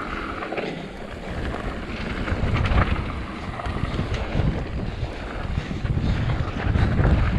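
Mountain bike rolling fast down a dirt singletrack, with its tyres crunching on the trail and the bike rattling over bumps, and wind buffeting the microphone in a heavy low rumble.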